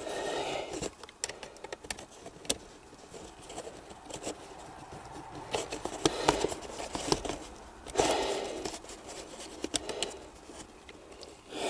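Scattered small metallic clicks and rustling as a metal hose clamp is handled and worked onto a hose, with short bursts of rustle near the start and about eight seconds in.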